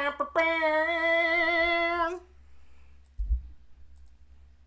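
A man's voice through cupped hands, sounding a held fanfare-like note for about two seconds with a slight waver, then cutting off. A soft low thump follows about a second later.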